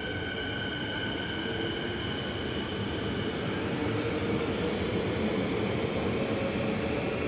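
Suburban electric train at a station platform: a steady rumble of wheels and running gear with a high electric whine. The whine fades about three seconds in and returns near the end, while a lower hum swells a little in the middle.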